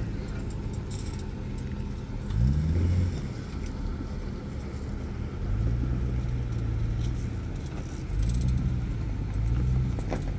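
Off-road vehicle engine worked in bursts of throttle at low speed: a quick rev about two seconds in, then three longer pulls later on, easing off between them.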